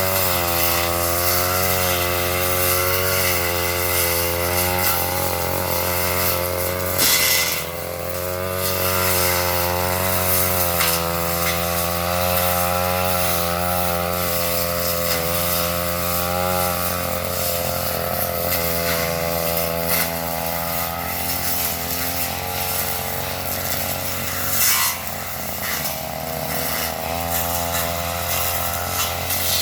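Two-stroke brush cutter running at high throttle while cutting undergrowth, its engine pitch wavering up and down as it works. Twice, about a quarter of the way in and near the end, there is a short harsher rasping burst.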